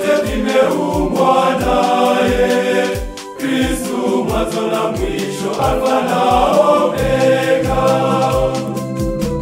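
Male choir singing a Swahili gospel hymn over a backing with a steady drum beat; the music drops away briefly about three seconds in.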